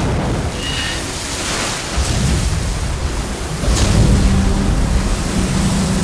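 Film sound effect of a massive water eruption: a loud, steady rush of spray and surf over a deep rumble, surging again about two seconds in and more strongly near four seconds.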